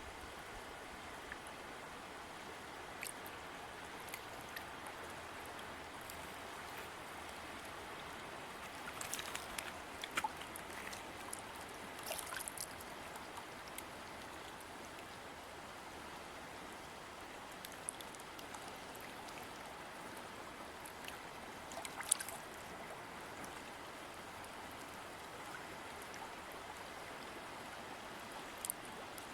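River water running steadily, with a few brief splashes standing out above the flow.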